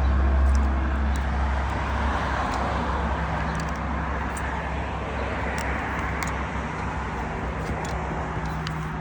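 Steady road traffic noise, with a low vehicle rumble that is loudest in the first two seconds and then fades.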